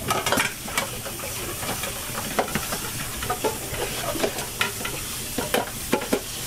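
Tap water running steadily into a kitchen sink while dishes are washed, with irregular clinks and knocks of a metal bowl and plastic bowls against the sink.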